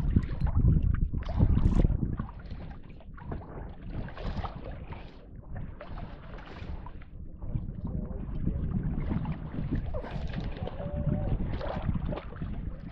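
Wind buffeting the microphone out on open water in a fishing boat, in gusts that are strongest in the first two seconds and then ease.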